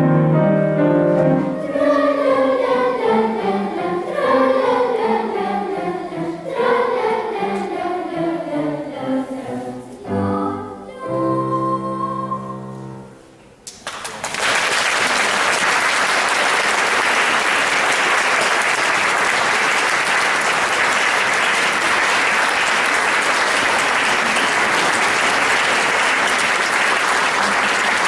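Children's choir singing with piano, in falling phrases that end on a final chord about halfway through. Audience applause follows, steady to the end.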